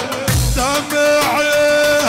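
Dabke dance music: a melody of wavering, bending notes, holding one long note in the second half, over deep drum beats.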